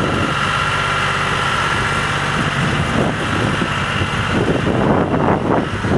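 John Deere 5055D tractor's three-cylinder diesel engine running steadily as the tractor drives off, with wind buffeting the microphone over the last second or so.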